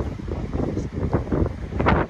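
Strong wind gusting across the microphone, an irregular buffeting that comes and goes in uneven blasts.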